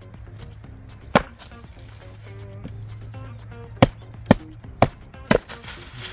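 Heavy knife blade chopping into firewood on a chopping block: five sharp strikes, one about a second in, then four in quick succession from about four seconds in. The wood's heartwood is hard going and the soft ground under the block soaks up the force of each blow.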